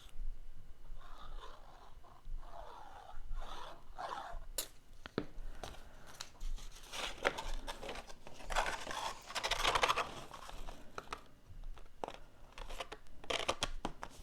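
Cardstock pieces being handled and pressed down by hand: irregular paper rustling and scraping with scattered small ticks.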